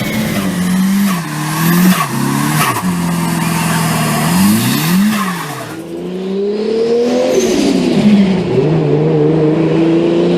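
Turbocharged car engine revved up and dropped back several times, its pitch rising and falling, with short chattering bursts as the throttle closes: turbo flutter from running without a blow-off valve. About halfway through it cuts to a second revving car.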